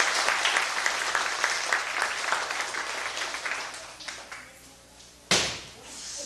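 Audience applauding, thinning out and fading about four seconds in. A sudden loud thump a little after five seconds, louder than the applause.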